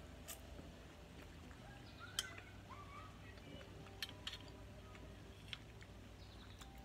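A metal fork clicking lightly against a ceramic plate a few times while eating, over quiet room tone; the loudest click comes about two seconds in.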